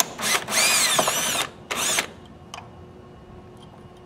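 Cordless drill with a screwdriver bit backing out a gear-plate screw. It gives a short blip, then runs for about a second with its motor speed wavering, then a last short burst, all within the first two seconds.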